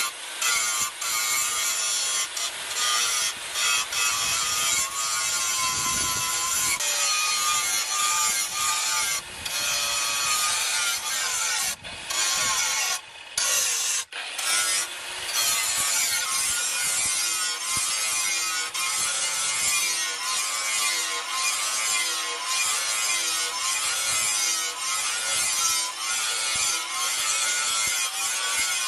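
Angle grinder with an abrasive disc grinding a steel knife blade, throwing sparks; the motor's whine wavers as the disc bites and eases off. The grinding stops briefly a few times about halfway through.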